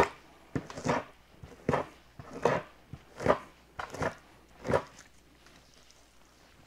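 Two-handled fleshing knife scraping fat and flesh off a beaver hide on a wooden fleshing beam: about seven quick strokes, roughly one every 0.8 seconds, stopping about five seconds in.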